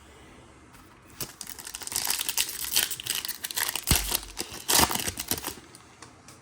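Trading-card pack wrapper being torn open and crinkled: a dense crackling rustle lasting about four seconds, with a couple of sharper snaps of tearing near the middle.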